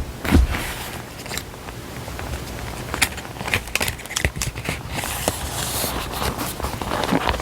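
Paper stationery handled close to the microphone: irregular crinkles and light taps, with a longer rustle of paper sliding about five seconds in.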